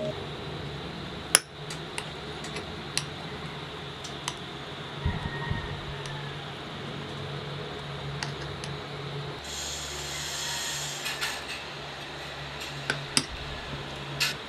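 Long metal spoon clinking and scraping against a glass jar while scooping out ice cream: single sharp clinks every second or so, over a low steady hum.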